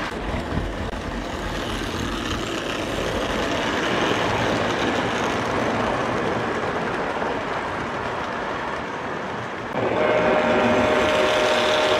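Prewar American Flyer O gauge tinplate trains rolling along T-rail track, with a steady rumble and rattle of metal wheels on rail. About ten seconds in it gets louder and a steady tone joins the rolling noise.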